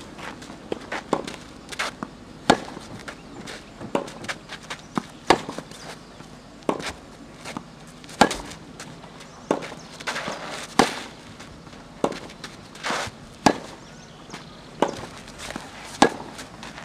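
Tennis racket strings striking the ball in a groundstroke rally: a sharp pop from the near player's stroke about every two and a half to three seconds, with fainter knocks in between.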